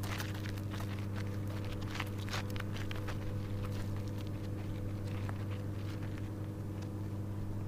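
Footsteps crunching on a rocky, gravelly trail, an irregular run of small scuffs that thins out after the first few seconds, over a steady low hum.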